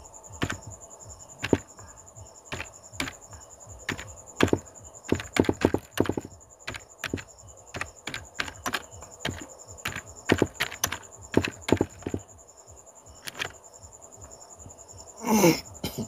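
Typing on a computer keyboard: irregular runs of key clicks, with a couple of short pauses near the end.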